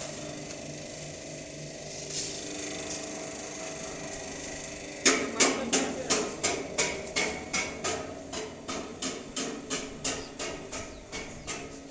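A hammer striking metal in a regular rhythm, about three ringing blows a second, starting about five seconds in, the first blows loudest and the rest growing fainter. Before the hammering there is only a faint steady hum.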